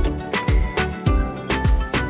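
Background music with a steady beat: a deep kick drum about twice a second under sustained melodic instrument lines.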